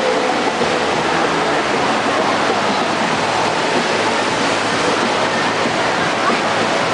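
Steady rush of pumped water flowing up the sheet wave of an indoor surf simulator.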